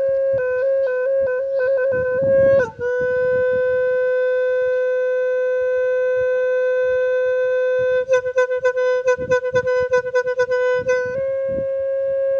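Music: a single woodwind instrument holding one unbroken note. It drops to a slightly lower note about two and a half seconds in, plays a run of quick trills between about eight and eleven seconds in, then returns to the higher note.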